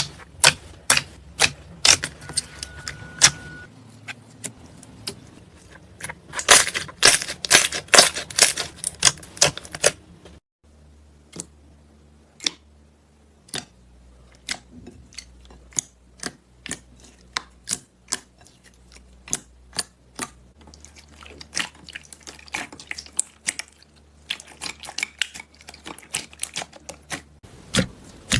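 Slime being squeezed and pressed, giving sharp clicking and popping sounds, the familiar crackle of slime ASMR. The clicks come in quick runs, then slow to single pops a second or so apart, then speed up again near the end.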